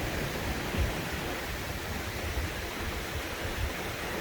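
Steady rushing of waterfall water at the Algar falls, an even hiss with some uneven low rumble underneath.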